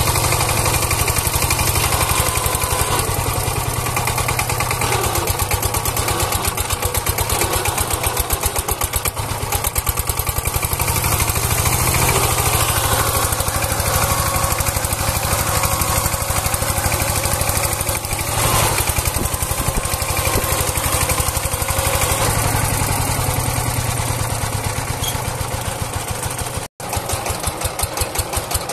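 A two-wheel power tiller's single-cylinder diesel engine running with a fast, even chugging. It is under load, working to pull a straw-laden trolley that is stuck in mud.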